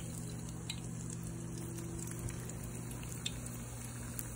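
Doughnuts frying in oil heated to 350 °F: a steady sizzle with scattered small pops and crackles. A low steady hum runs underneath.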